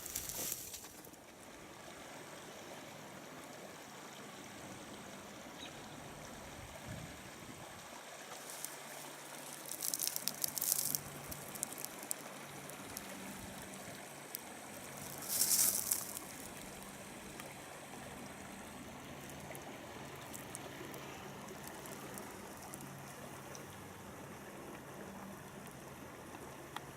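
Creek water trickling and flowing steadily, with two short, louder hisses about ten and fifteen seconds in.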